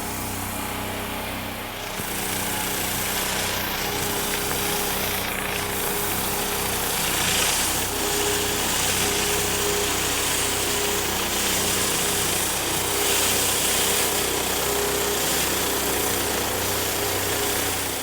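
Pressure washer engine running steadily under the hiss of high-pressure water spraying onto concrete during a driveway clean.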